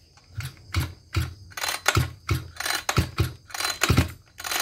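Recoil pull starter of a Maruyama KC26 26 cc two-stroke brushcutter being drawn out. It gives a string of short mechanical clicks, about three a second, and the engine does not fire.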